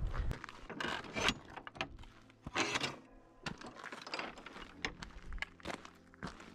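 Footsteps on a gravel track and the irregular knocks and rattles of a wooden gate being handled, with short scuffing bursts and clicks.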